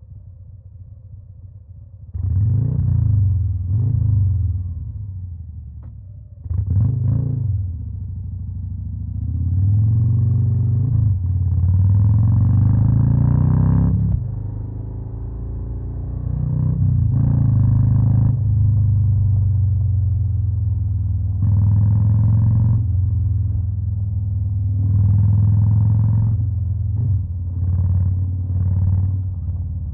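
Harley-Davidson Fat Boy's V-twin engine with a Stage 2 upgrade, revved in short throttle blips that rise and fall, with a longer rev a third of the way in and running steadily between blips. The first couple of seconds are quieter before the engine sound jumps up loudly.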